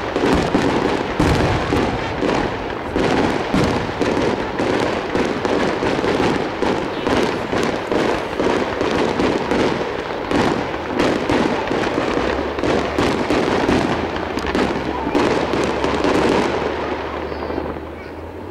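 Aerial fireworks going off in a dense run of rapid cracks and pops that dies away near the end.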